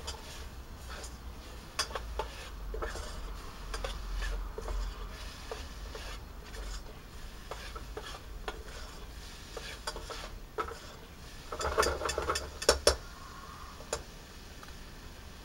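Diced bacon frying in a metal cooking pot on a portable gas stove as its fat renders out, stirred with a titanium spork that scrapes and clicks against the pot. There is a quick cluster of louder clinks about twelve seconds in.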